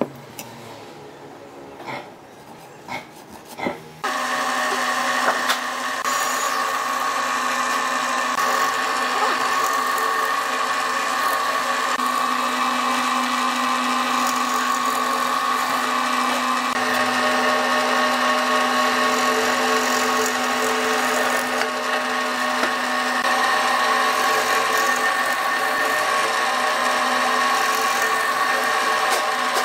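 A few light knocks, then about four seconds in an electric power tool starts and runs steadily with a constant whine on wood.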